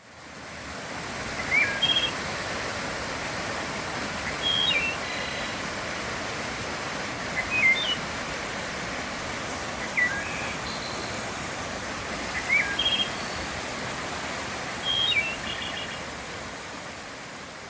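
Running water making a steady rushing hiss, with a single bird calling six times at even spacing of a few seconds, each call short, clear and high-pitched. The sound fades in at the start.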